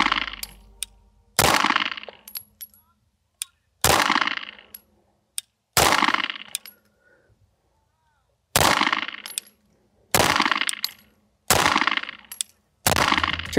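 Atlas Gunworks Ares 2011 pistol fired slow and deliberate: seven single shots, one every one and a half to two and a half seconds, each trailing off over about a second, with faint clicks between shots.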